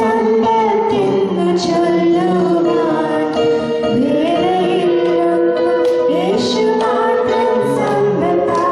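Voices singing a Christian song into microphones, with long held notes.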